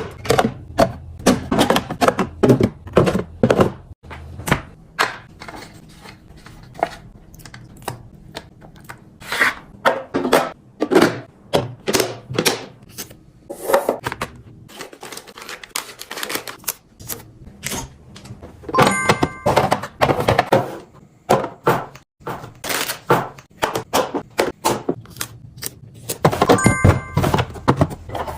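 Items and plastic containers being handled and set down, a dense run of clicks, knocks and thunks. Twice a brief ringing clink, like glass or a hard container striking.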